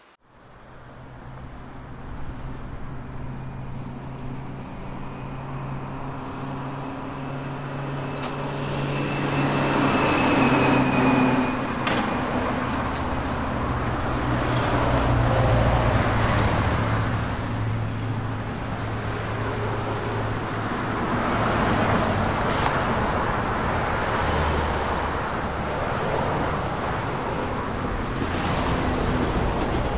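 Road traffic noise: car engines and tyres running steadily, swelling and fading several times as vehicles pass.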